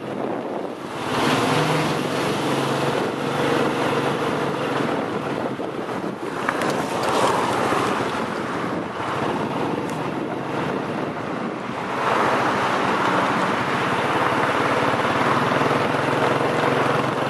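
Wind buffeting the microphone in a rushing roar, louder about a second in and again about twelve seconds in, with a steady low hum underneath.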